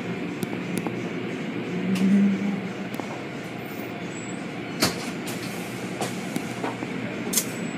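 A steady, rumbling mechanical noise, like a vehicle or machinery, with a brief swell about two seconds in and a few sharp knocks near the end.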